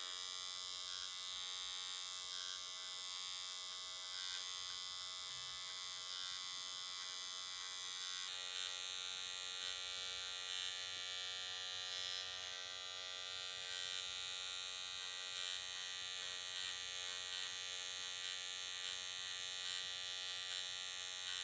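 Dr. Pen electric microneedling pen buzzing steadily as its needle cartridge works across the skin of the forehead and brow. Its tone shifts slightly about eight seconds in.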